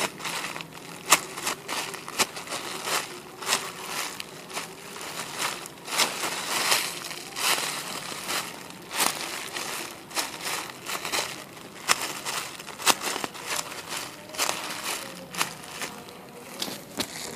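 Soft foam squishy toy being squeezed and handled close to the microphone: a continuous crinkly crackling with many small sharp clicks.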